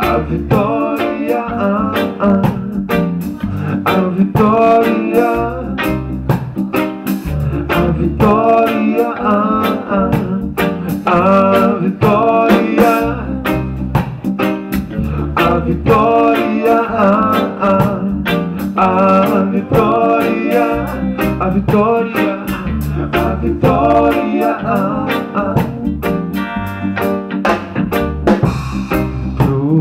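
Live band playing amplified music: electric guitar, keyboard and drum kit with a steady low beat.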